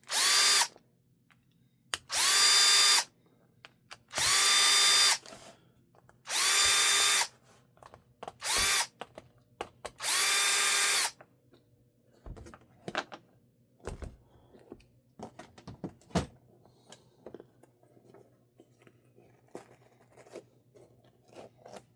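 Small electric drill/driver run in six short bursts of about a second each, roughly every two seconds, its motor whine rising at each start, while working on RC crawler wheels. After that come scattered light clicks and a few knocks of small parts being handled.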